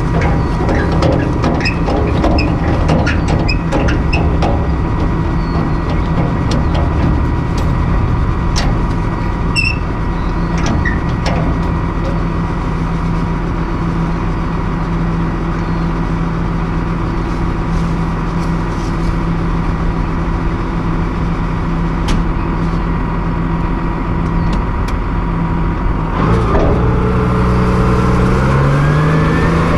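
Case IH MX120 tractor's diesel engine idling steadily, with light metal clinks and taps over the first ten seconds or so as the spreader is coupled at the drawbar. Near the end the engine speeds up with a rising pitch as the tractor begins to pull.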